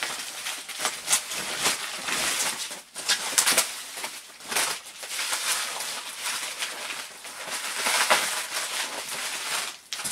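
Cardboard and plastic packaging rustling and scraping as a wrapped painting is pulled from its box and unwrapped, in irregular swells and bursts of crinkly noise.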